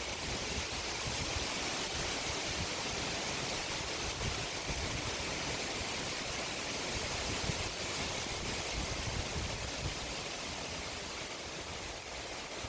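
Wind blowing, a steady rushing hiss, with gusts buffeting the microphone as low rumbles a few times.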